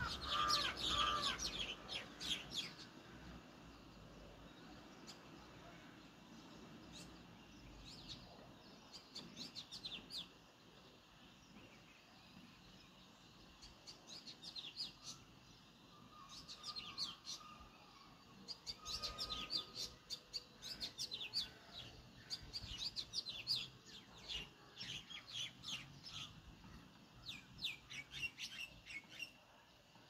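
Sparrows chirping in repeated bursts of quick, short chirps separated by pauses of a few seconds, with a lower call at the very start.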